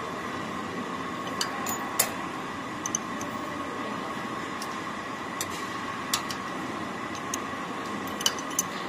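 Steady machinery hum with a thin high whine, and scattered light sharp clicks from hands working screws and a spring on a tipping machine's blade holder.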